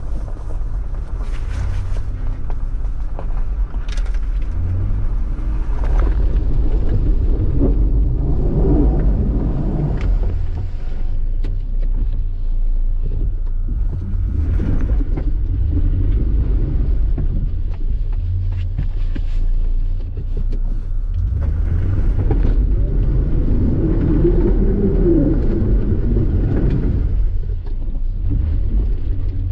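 A 4x4's engine rumbling inside the cab as it drives through an iced-over, waterlogged trail, breaking the ice. Scattered knocks and splashes of ice and muddy water hit the body, with two louder surges of churning about a third of the way in and again near the end.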